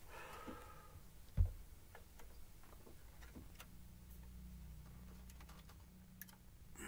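Faint scattered clicks and taps of hands handling a sealed vinyl record sleeve, with one short dull thump about a second and a half in.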